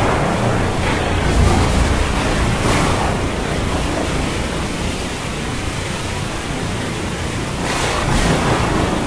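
Storm ambience at sea: a steady wash of noise with a low rumble underneath, swelling briefly a couple of times.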